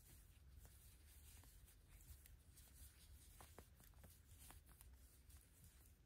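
Near silence: faint, irregular soft ticks and rustling of a crochet hook working double-stranded cotton yarn into half double crochet stitches, over a low room hum.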